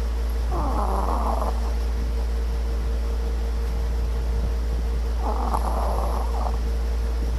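Snoring: two drawn-out rasping snores of about a second each, one just after the start and one a little over five seconds in, over a steady low hum.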